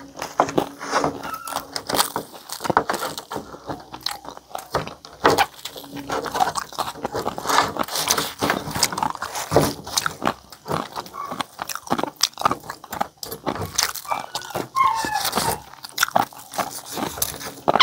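Close-up eating sounds of crispy pata (deep-fried pork knuckle): chewing, biting and crunching of the crisp skin, with irregular clicks and crackles as fingers and a knife tear it apart.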